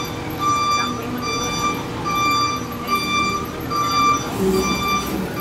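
Heavy forklift's backup alarm beeping at a steady rate, a little more than one beep a second, over the rumble of its engine.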